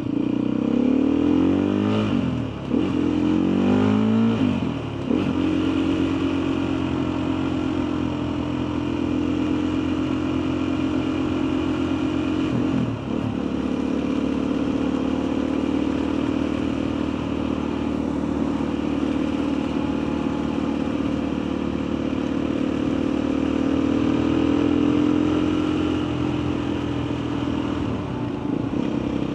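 Motorcycle engine pulling up through the gears, its note rising and breaking off at each upshift in the first few seconds and once more about thirteen seconds in, then cruising at a steady pitch that eases off near the end.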